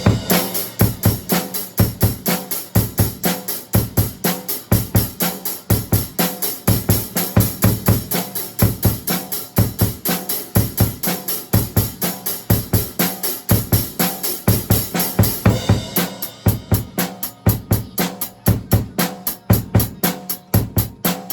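Acoustic drum kit played live: a busy rock beat of kick drum, snare and cymbals, at 85% of the original song's tempo. About 16 seconds in, the steady cymbal wash gives way to evenly spaced hi-hat strokes over the kick and snare.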